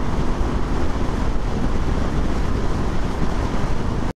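Wind rushing over a microphone with the rumble of a Honda CB500F motorcycle under way, loud and steady; it cuts off abruptly just before the end.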